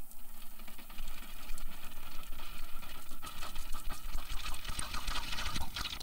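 A person sipping and slurping hot coffee: a continuous crackly sucking sound full of small clicks, busiest in the last few seconds.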